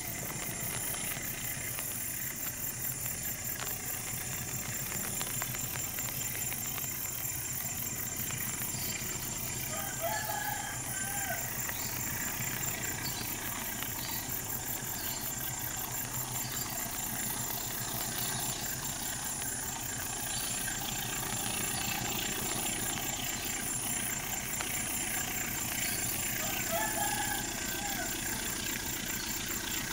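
Diesel-electric locomotive (CC 204) running at a distance as it approaches with a pulp train: a low, steady rumble that grows slightly louder. A high pulsing buzz runs throughout, and a bird calls briefly twice, about ten seconds in and near the end.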